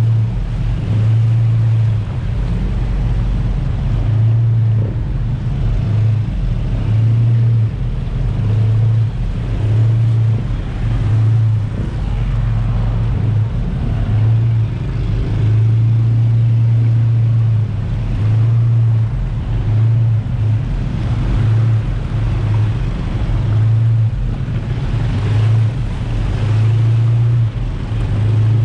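A jet ski's engine running at speed, its low drone cutting in and out every second or so, with wind rushing over the microphone and water noise.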